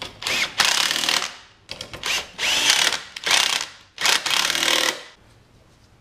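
Bosch power driver run in four short bursts of about a second each, with a whine that rises and falls in pitch, driving in the fasteners that hold the scooter's ignition coil.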